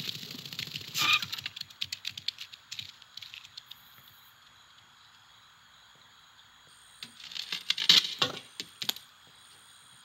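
Animated-film sound effects with no music or dialogue: a sharp crack about a second in, then a scatter of small clicks and rattles, a lull, and another flurry of clicks and rattles from about seven to nine seconds.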